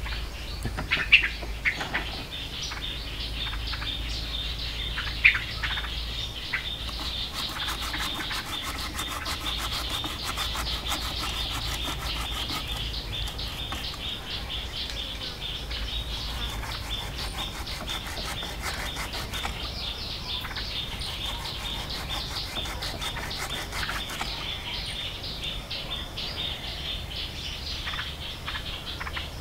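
Birds chirping, with a few sharp, falling calls in the first few seconds, over a steady, high, rapidly pulsing insect trill.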